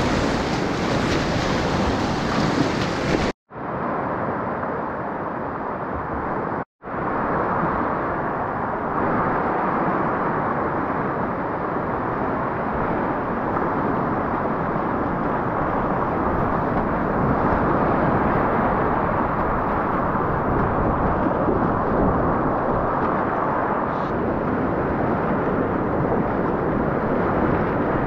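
Whitewater rapids rushing and churning around a kayak as steady, loud water noise. The sound cuts out for an instant twice, about three and a half and about seven seconds in.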